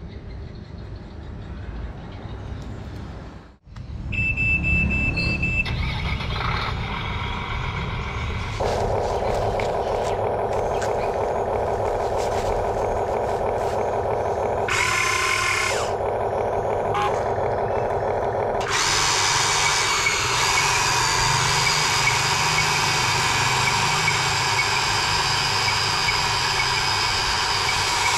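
Small electric motors and gears of a Huina remote-control excavator whining as it drives its tracks and works its arm, the tone changing as different motors start and stop. A louder, harsher whir sets in about two-thirds of the way through.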